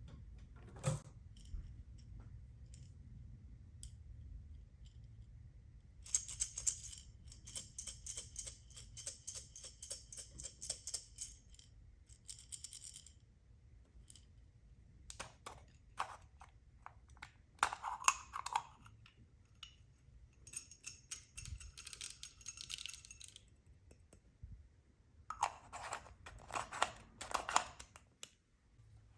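Small hard pieces rattling and clicking against each other, in four bursts of rapid clicks a few seconds long, with short pauses between.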